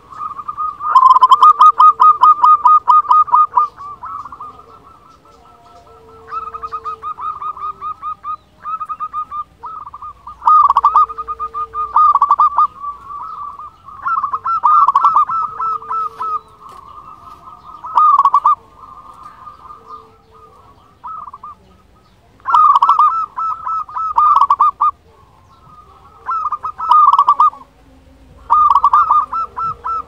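Zebra dove (perkutut) song: repeated bouts of fast, rolling staccato coos, each lasting a second or two, coming every few seconds.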